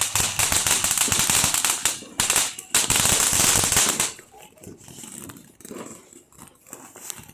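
Firecrackers going off in a rapid crackling string, with a short break about two seconds in, stopping about four seconds in.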